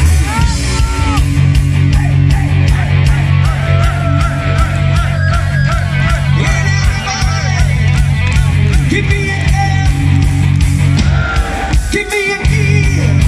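Power metal band playing live at full volume: distorted electric guitars, bass and driving drums. Near the end the band stops for a moment, then comes back in.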